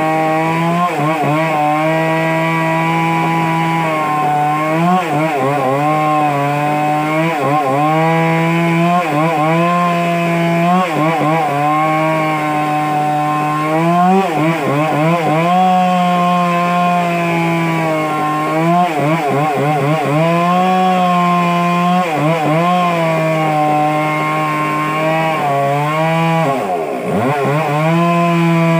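Stihl two-stroke chainsaw running at high revs while cutting into a large log, its engine note sagging and recovering every second or two as the chain loads up in the wood, with one deeper drop near the end.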